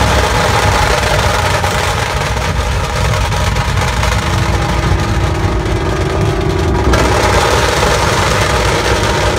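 Heavy vehicle engine running at low speed, a steady low rumble, with a faint steady tone joining for about three seconds midway.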